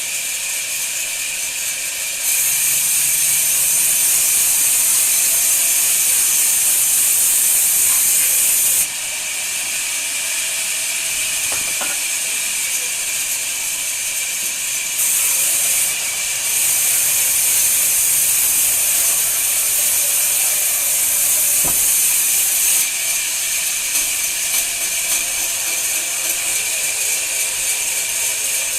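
Woodworking machine running with a steady high hiss. It grows louder about two seconds in, drops back near nine seconds, and grows louder again from about fifteen to twenty-three seconds.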